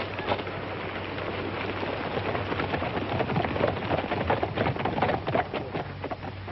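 Hoofbeats of several horses setting off at a gallop: a dense, irregular clatter that eases off near the end.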